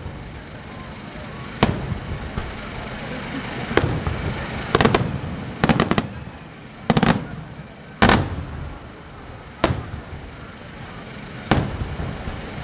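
Aerial firework shells bursting overhead: a dozen or so sharp bangs at irregular intervals, several coming in quick clusters around the middle, over a continuous background rumble.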